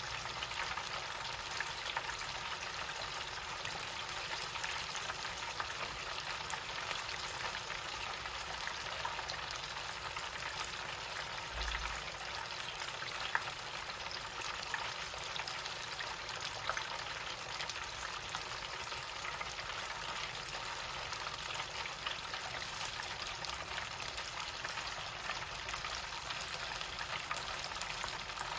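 Chicken pieces deep-frying in hot oil at about 375°F, a steady sizzle dotted with small crackles and pops.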